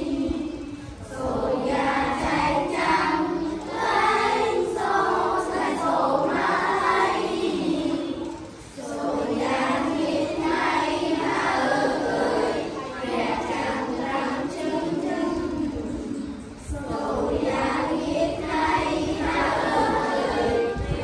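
A class of children singing together in unison, a Khmer text set to a yike folk-opera melody, in long phrases with brief breaks between them.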